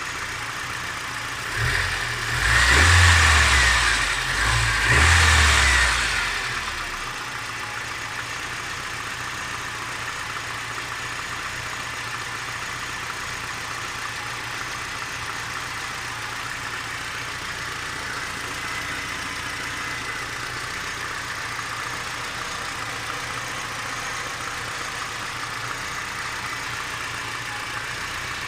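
Warm car engine idling, blipped twice about three and five seconds in, then settling to a steady idle. A faint knock is still there, which the owner suspects is piston slap.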